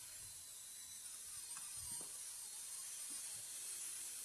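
Cooking oil heating in a frying pan, with a faint steady sizzle.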